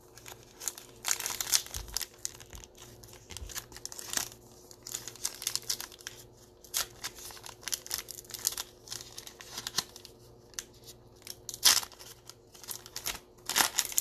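Foil wrapper of a trading card pack being crinkled and torn open by hand, in irregular crackling bursts with brief pauses between.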